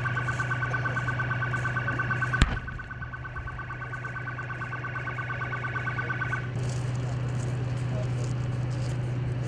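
A rapidly pulsing electronic alarm tone over a steady low hum. There is a sharp click about two and a half seconds in, and the alarm stops about six and a half seconds in.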